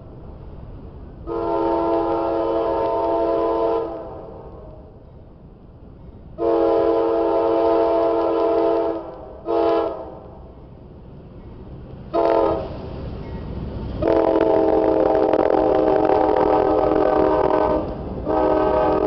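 Lead diesel locomotive of a CSX freight, a GE C40-8W, sounding its multi-chime air horn in a crossing-warning sequence: two long blasts, two short ones, then a long blast held as the locomotives pass. The rumble of the engines and the rolling freight cars comes up under the horn in the last few seconds.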